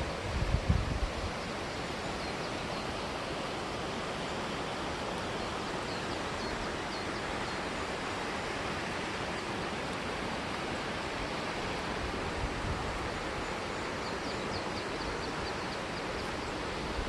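Steady outdoor rushing noise, even and unbroken, with a few low bumps about half a second in.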